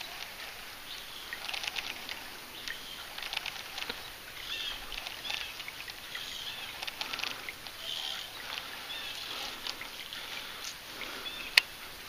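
Small birds chirping over outdoor ambience, with scattered light ticks and one sharp click near the end.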